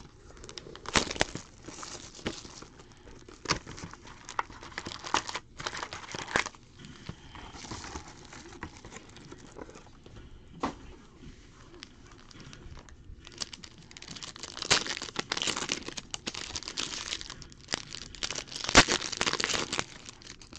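Foil trading-card packs from a Chronicles football hobby box crinkling and tearing as the box is opened and the packs are handled and ripped open. Irregular crackles and sharp clicks, busiest in the last several seconds.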